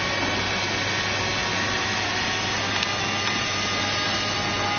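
Electric fan motors of a remote-control hovercraft running steadily: a constant whirring rush with a thin motor whine that drifts slightly in pitch.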